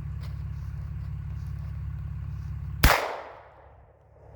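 A truck engine idling, then about three seconds in a single loud shotgun shot fired at a bird, a miss. The idle hum drops out for a moment after the blast and comes back.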